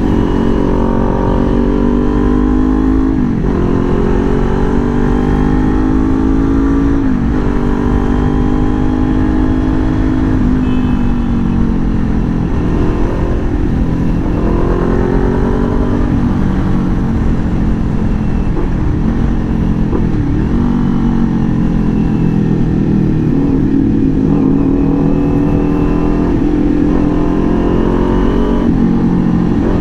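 Motorcycle engine under way, its pitch climbing and then dropping sharply again and again as the rider accelerates and shifts up through the gears.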